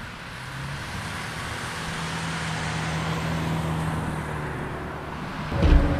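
A car driving past over the level crossing: engine hum and tyre noise swell as it approaches, then fade. Music starts abruptly near the end.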